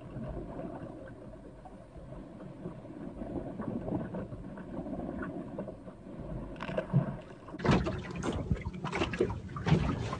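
Water lapping and gurgling against the hull of a small boat drifting on open water, with a little wind. About three-quarters of the way in, a run of louder knocks and rustles starts.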